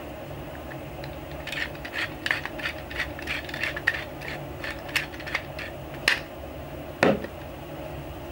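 Hand-twisted spice mill grinding, a run of quick irregular clicks for several seconds, then a single thump about seven seconds in, over a steady low hum.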